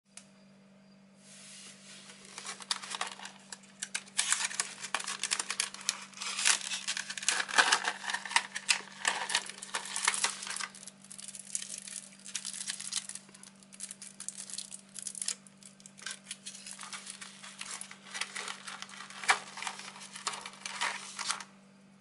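Thin plastic blister packaging being handled and opened: dense crinkling, crackling and clicking of the plastic, which stops shortly before the end. A steady low hum runs underneath.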